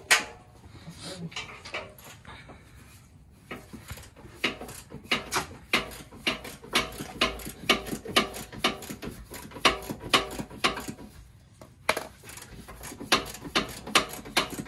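Socket ratchet wrench clicking in quick, uneven runs of sharp ticks, about three or four a second, as bolts are worked. The clicking starts about four seconds in and pauses briefly near the end.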